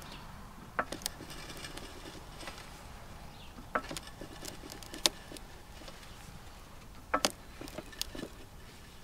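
Pittsburgh 3-ton low-profile floor jack being pumped by hand under a heavy boulder: a few sharp clicks and knocks, single or in close pairs, a second or more apart as the handle strokes.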